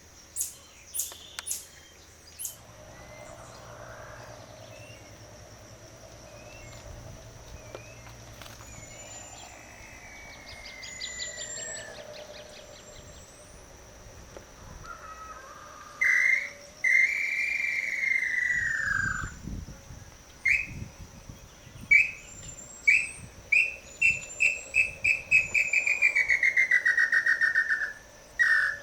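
Whistled pé-vermelho calls. First comes a faint, long falling whistle, then a loud arching whistle, then a run of short whistled notes that speed up and merge into a falling trill. A steady insect buzz and faint high chirps of other birds run underneath.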